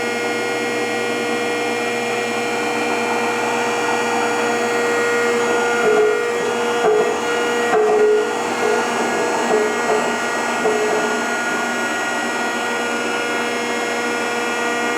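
Rockford hydraulic planer running, its hydraulic pump and motor giving a steady, many-toned whine. Between about six and eleven seconds in, a slightly lower note cuts in briefly several times, about once a second. The owner suspects a tight gib or a way that is not getting enough oil.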